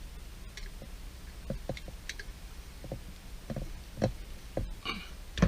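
Scattered light clicks and knocks, irregularly spaced, from parts of a dishwasher being handled during repair, with a slightly louder knock at the very end.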